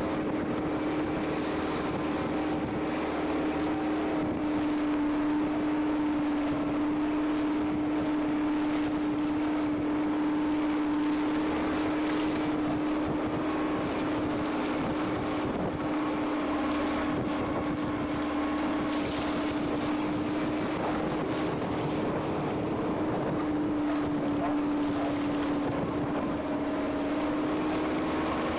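Boat engine running steadily under way, a constant drone, with wind and rushing water around it.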